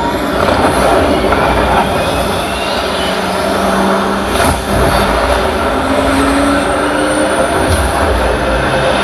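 Loud, steady roar of a vehicle-like sound effect from a film soundtrack, with faint sliding tones, played back through a 2.1 soundbar and subwoofer.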